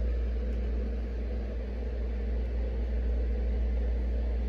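A steady low hum with a faint, even hiss over it; nothing starts, stops or changes.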